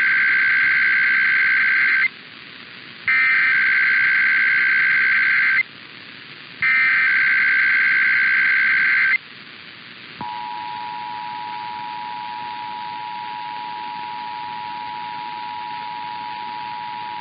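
Emergency Alert System header: three identical bursts of screechy digital data tones, each about two and a half seconds long with about a second's pause between, then about ten seconds in the steady two-tone EAS attention signal, a harsh dual-pitch beep that holds to the end. Together they announce an IPAWS required weekly test.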